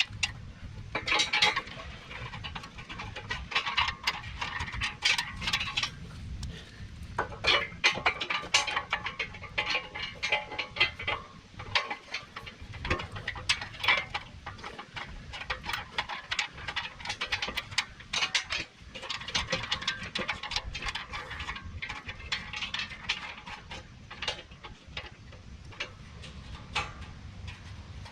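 Irregular metallic clinks and knocks of bolts against a gas tank skid plate and its mounting points as the bolts are started by hand and run in finger tight.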